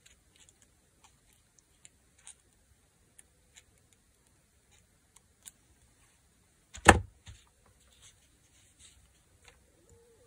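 Handling sounds of hand sewing fabric: small, scattered clicks and ticks of needle, thread and scraps being worked. A single loud knock comes about seven seconds in, with a smaller one just after.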